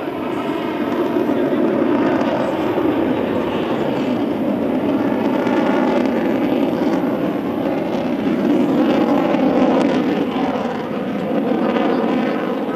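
Twin AL-31FP turbofan engines of a Sukhoi Su-30SM fighter in display flight: loud, steady jet noise whose tone slowly sweeps as the aircraft moves across the sky.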